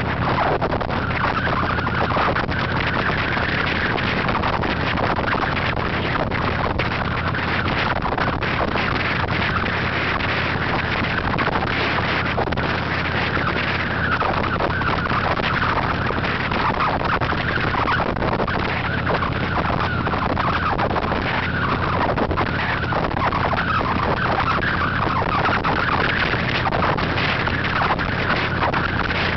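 Steady rush of wind and road noise on a moving motorcycle, with a low, even engine hum underneath.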